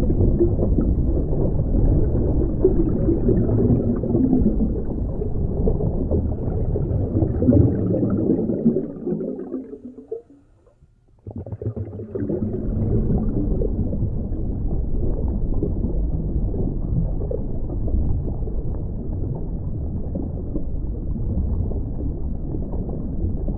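Muffled underwater sound heard through a dive camera's housing: a low rumble with the gurgle of a scuba diver's exhaled regulator bubbles. It fades out about ten seconds in and comes back abruptly a second later.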